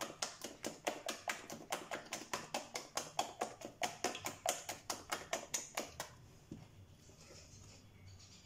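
A spatula beating thick madeleine batter in a glass bowl by hand: rapid, even slaps and taps against the glass, about five a second, that stop about six seconds in.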